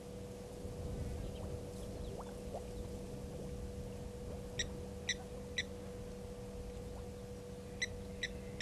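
A bird giving short, sharp high-pitched chirps in quick groups, three about half a second apart midway and two more near the end, over a steady faint electrical hum.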